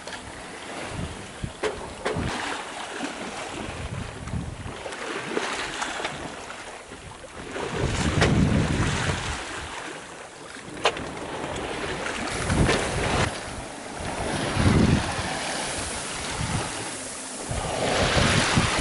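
Wind and sea around a Hallberg-Rassy 36 sailboat under way: water rushing and washing along the hull in surges, with wind buffeting the microphone and a few sharp knocks.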